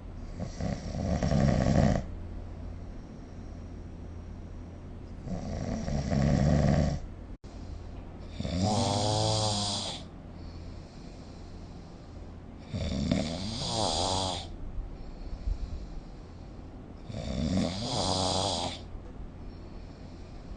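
A sleeping person snoring: five long snores, one about every four seconds, each lasting roughly two seconds, some with a pitch that rises and falls.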